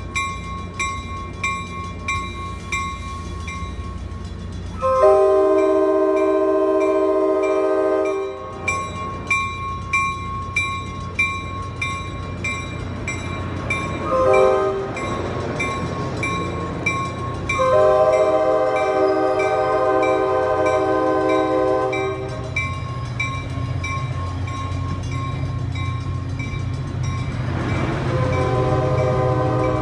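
Coaster commuter train's locomotive horn sounding three long multi-note blasts and one short blast, over a bell dinging about twice a second. The low rumble of the rolling train grows near the end.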